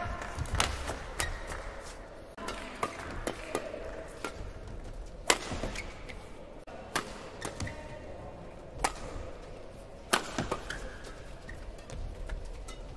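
Badminton rackets striking a shuttlecock in a doubles rally: sharp cracks at irregular intervals of about one to two seconds, the loudest about five seconds in.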